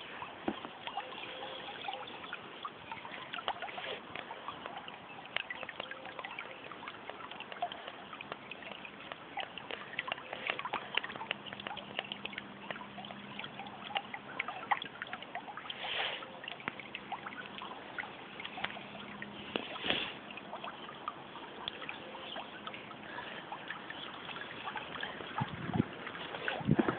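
Floodwater running and splashing at a blocked roadside drain grate: a steady rush of water with many small splashes, briefly louder a couple of times.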